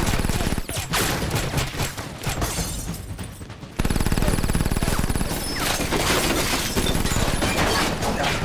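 Rapid bursts of automatic gunfire from a film shootout, mixed with glass shattering. The firing thins out briefly and then comes back louder and unbroken about four seconds in.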